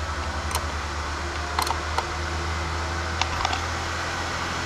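A few sharp metallic clicks from a ring spanner working the positive terminal clamp on a car battery, over a steady low hum.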